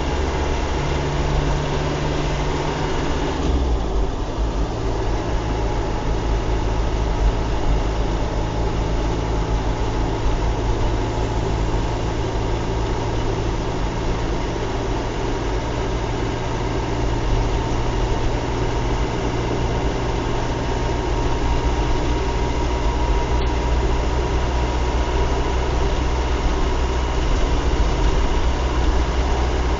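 Car engine and tyre noise on a wet road, heard from inside the cabin while driving, steady throughout. About three and a half seconds in the engine note drops to a lower pitch and then holds.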